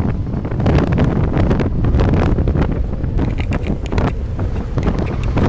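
Strong gusty wind buffeting the microphone: a loud low rumble broken by rapid, irregular blasts.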